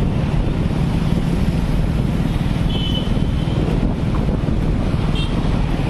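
Steady road and engine noise from a moving vehicle in city traffic, with wind buffeting the microphone. Two short horn toots sound in the traffic, about three seconds in and again near the end.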